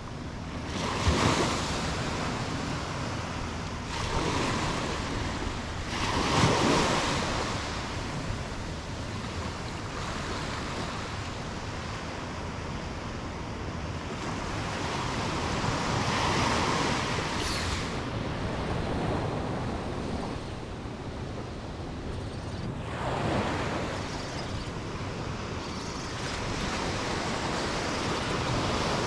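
Small waves breaking and washing up a sandy beach, swelling every few seconds, with wind rumbling on the microphone.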